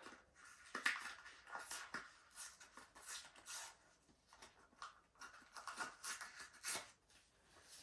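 Plastic packaging crinkling and scraping in a run of short, irregular crackles as a protective piece is pulled off a soundbar by hand.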